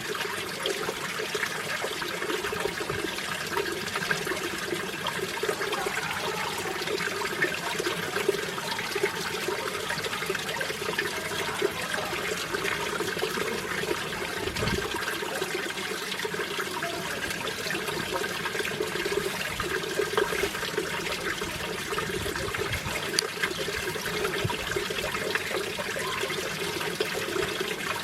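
Mountain stream flowing over rocks: a steady, even rush and splash of water.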